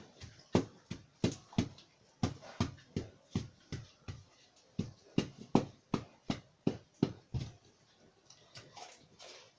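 Sand refilled into a hole in a pig-pen floor being rammed down with a hand tamper: a steady run of thuds, about three a second, that stops about seven and a half seconds in.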